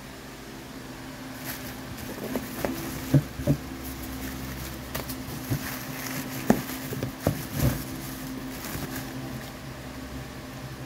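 Hands rummaging in a cardboard box of wrapped dumbbell parts: plastic bags and foam wrap rustling, with a string of sharp knocks as the plastic-cased weight plates are shifted. A steady low hum runs underneath.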